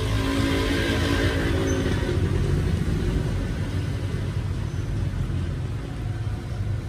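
A motor vehicle's engine running close by over a steady low rumble, loudest in the first two to three seconds and then fading.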